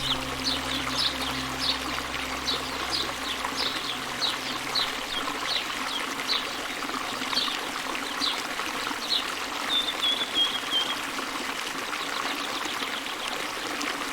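Stream water running steadily, with a bird calling a string of short falling notes, roughly one or two a second, then a quick descending trill about ten seconds in. A low steady hum fades out in the first few seconds.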